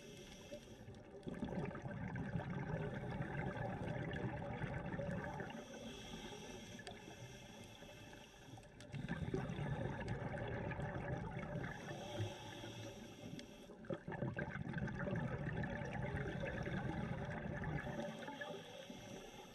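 Scuba diver breathing through a regulator underwater: a hissing inhale, then a longer bubbling exhale, about three breaths in a steady rhythm.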